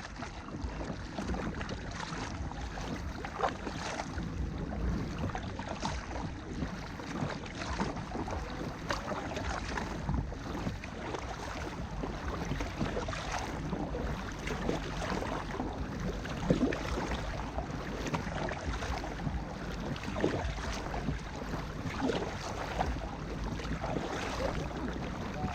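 Water splashing and lapping around a kayak, with frequent small splashes and knocks over a steady rush of wind on the microphone.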